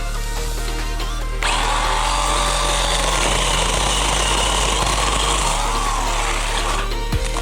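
YARDFORCE 24V battery-powered handheld chainsaw running and cutting wood, a steady electric whine with a rasping chain, starting about a second and a half in and stopping suddenly near the end. Electronic background music plays underneath.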